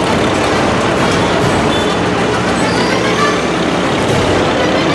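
Vintage Farmall tractor engines running steadily as the tractors drive slowly past, one after another.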